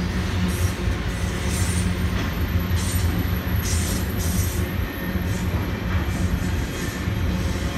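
Freight train of double-stack container cars rolling past, a steady rumble of wheels on rail, with a few short high-pitched wheel squeals about three to four seconds in.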